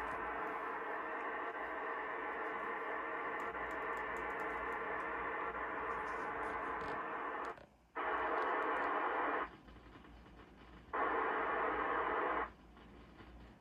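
A hiss-like noise test signal played from a phone through a small loudspeaker, used to drive a sound-to-colour LED strip circuit. It runs steadily for about seven and a half seconds, stops, then comes back as two separate bursts of about a second and a half each.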